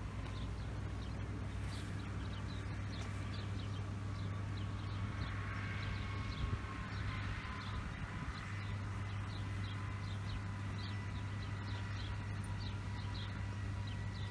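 Steady low electrical hum from the high-voltage substation and overhead power lines, with small birds chirping in short high notes throughout.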